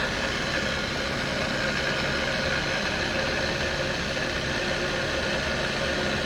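Arboga Maskiner E830 geared-head drill press running steadily in high gear with its power down feed engaged: an even machine hum with a few steady tones through it.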